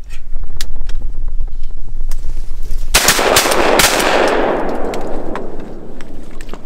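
A rapid volley of several shotgun blasts about three seconds in, fired at ducks, with the echo rolling away for a couple of seconds. Before it there is a low rumble on the microphone.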